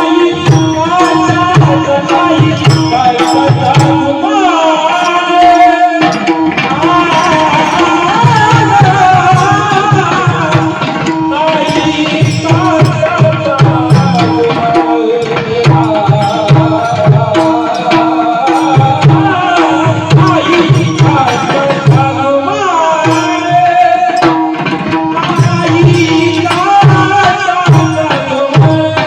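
Devotional kirtan singing: a male voice sings a long, ornamented melody that slides between notes. A hand drum beats a steady rhythm beneath it, with a held drone note and sharp high ticks keeping time. The drum pauses briefly at about four and twenty-two seconds in.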